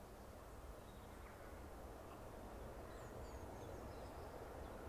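Faint, distant low rumble of a BR Standard Class 9F steam locomotive and its train approaching, growing slowly louder, with a few faint bird chirps.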